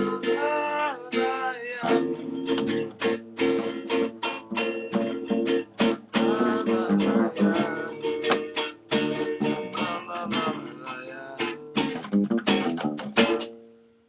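Acoustic guitar and acoustic bass guitar playing a samba, plucked and strummed. The playing ends about half a second before the close, with the last notes ringing out.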